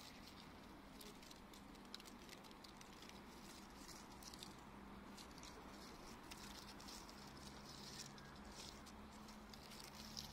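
Near silence: faint ambience with scattered light ticks and rustles.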